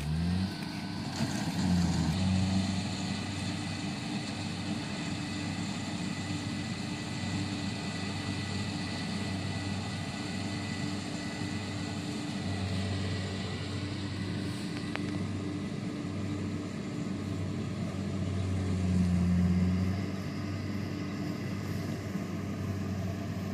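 Diesel engine of a rice combine harvester running steadily under load, with its threshing and cutting machinery clattering beneath the drone. It grows a little louder around nineteen seconds in.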